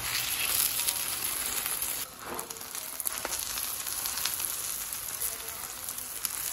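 Egg omelette sizzling in hot oil on a flat griddle as it is turned over with steel tongs. The frying hiss is loudest in the first two seconds, dips briefly, then carries on steadily.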